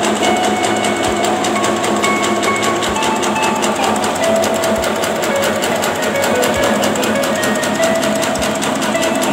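Bakso (meatball) forming machine running: a steady, dense mechanical rattle from its motor and drive, with a low knock about every two seconds.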